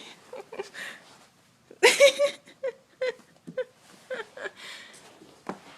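Dachshund puppy making a run of short, squeaky whimpering noises, with one louder, harsher burst about two seconds in.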